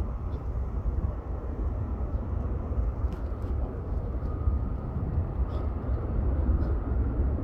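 Distant Airbus A350 jet airliner on final approach, its Rolls-Royce Trent XWB engines heard as a steady low rumble.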